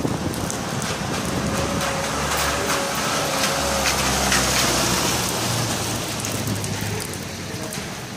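Steady rain on a wet cobbled street, with a Ford Transit van driving past close by: its engine and its tyres on the wet cobbles swell up, are loudest about four seconds in, and fade again.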